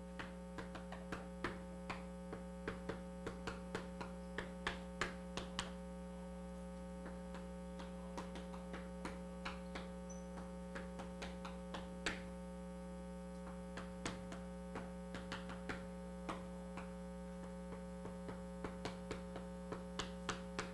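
Chalk tapping against a blackboard in short, irregular strokes while writing, over a steady electrical hum.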